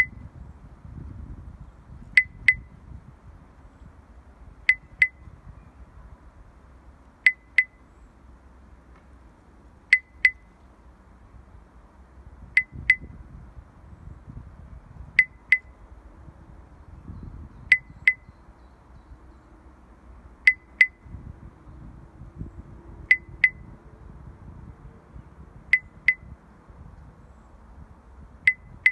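Pairs of short, high clinking ticks, two ticks close together, with a pair coming about every two and a half seconds in a slow lub-dub rhythm like a heartbeat, over a faint low rumble.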